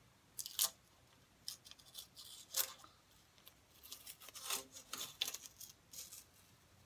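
Tape being peeled off the painted bell end of a wooden didgeridoo: a series of short, scratchy ripping sounds, the loudest about half a second in and again about two and a half seconds in.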